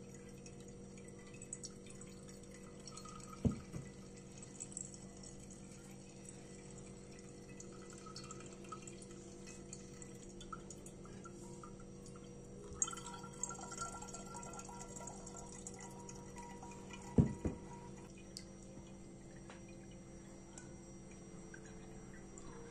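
Peach-lemon juice dripping and trickling through a cheesecloth strainer into a glass pitcher, over a steady low hum. Two dull knocks stand out, one a few seconds in and one about three-quarters of the way through.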